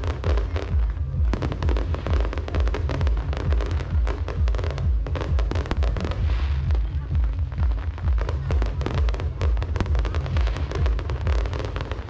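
Fireworks display going off: dense, rapid bangs and crackle over a heavy low rumble, with music playing alongside.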